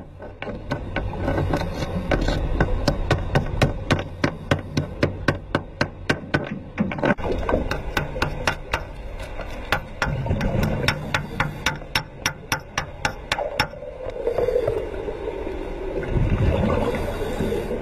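Hammer chipping slag off an underwater weld, metal striking steel in sharp, regular knocks about three a second. The knocking stops a little before the end, giving way to a low rushing noise.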